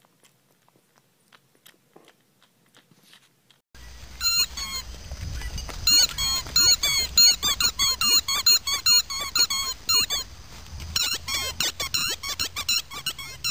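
A dog chewing a squeaky rubber ball, setting off rapid repeated high squeaks, several a second, from about four seconds in, with a short lull later on. Before that there are only faint soft clicks of a puppy sucking on a pacifier.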